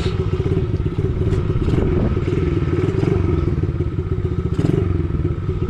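Small gas dirt bike's engine running steadily close by, a rapid even firing pulse, loud, with a few brief clicks and knocks over it.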